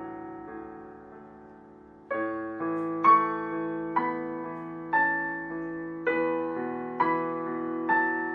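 Solo piano playing a slow, gentle piece. Soft notes fade away at first, then about two seconds in the playing grows louder with chords struck roughly once a second.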